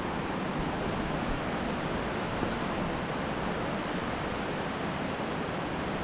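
Steady rush of running water over rocks, an even hiss with no breaks.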